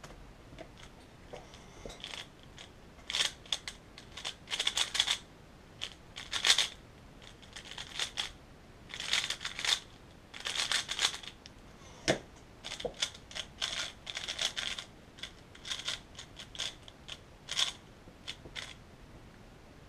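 3x3 speedcube being turned fast by hand: bursts of plastic layers clicking and rattling, broken by short pauses, with one sharper knock about twelve seconds in. Toward the end the turning is a timed speedsolve.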